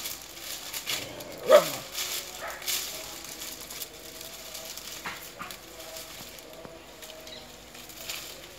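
Dry coconut fronds crackling and rustling under a small dog's steps as it moves over the pile, with a single dog bark, falling in pitch, about a second and a half in.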